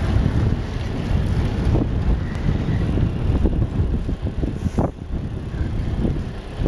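Wind buffeting the microphone while riding a bicycle: a loud, uneven low rumble.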